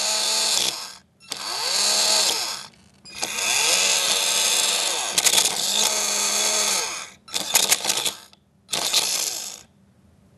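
Titan 12T brushed electric RC motor with its back end cap torn off, run in about five bursts, its pitch rising and falling as it spins up and slows, over a harsh buzzing hiss. The motor had been taken for broken and does run, though only roughly.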